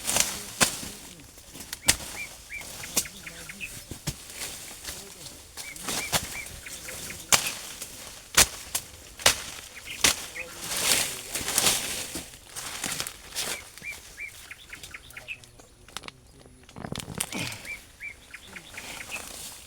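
Irregular rustling and crackling of plants and earth being handled, with small birds chirping in short runs of three or four notes now and then.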